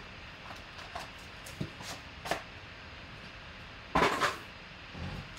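Cardboard hobby box and foil-wrapped trading-card pack being handled on a tabletop: scattered light taps and rustles, with a louder rustle of the pack about four seconds in.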